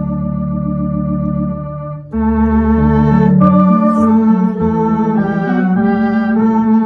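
Electronic organ playing a hymn tune in held chords. There is a brief break about two seconds in, then the chords move on a little louder, changing every half second or so.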